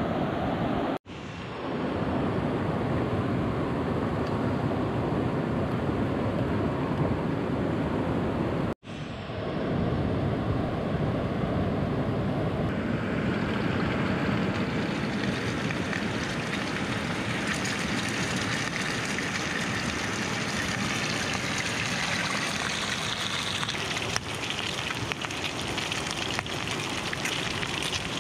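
Steady rush of a hill stream's flowing water. It cuts out briefly twice, about a second in and about nine seconds in, and grows hissier from about halfway through.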